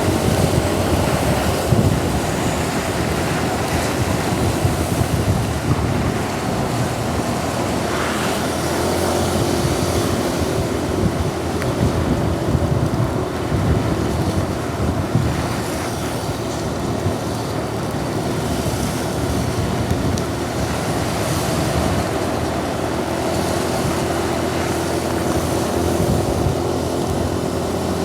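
Steady rushing noise of heavy rain and wet road traffic, with wind buffeting the microphone.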